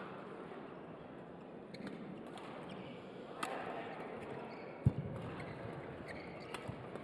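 Badminton rally: sharp racket strikes on the shuttlecock every second or two over the steady hum of an indoor arena. A dull thud about five seconds in is the loudest sound.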